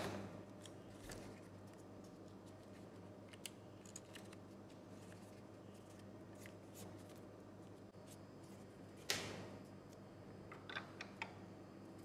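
A sheet of A4 printer paper being handled and folded by hand: a crisp rustle right at the start and a louder one about nine seconds in that fades over a second, with a few small ticks and crinkles in between and after.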